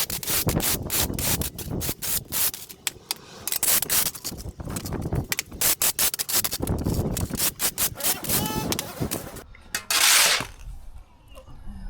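Pressure washer jet working over brick paving, a rushing spray noise that comes in quick uneven bursts, with one longer steady burst about ten seconds in.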